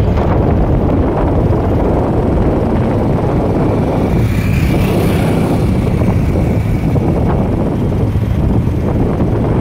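Steady rush of wind and road noise from a moving vehicle, with wind buffeting the microphone.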